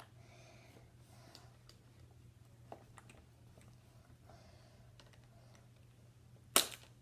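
Scattered small clicks and handling noises of hands working on a frog lure and hook at a tabletop, over a faint steady hum. One sharp knock near the end is much louder than the rest.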